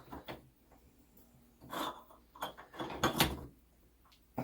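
Clock mainspring winder being worked: a few scattered metallic clicks and knocks, a cluster about two seconds in and another around three seconds, as the spring is wound down small.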